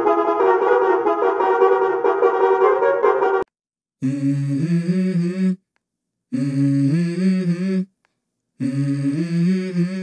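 Edited bus horn sound effect: a dense, wavering horn chord cuts off abruptly about three and a half seconds in. After a short silence come three separate horn blasts of about a second and a half each, each stepping through a few pitches like a short tune.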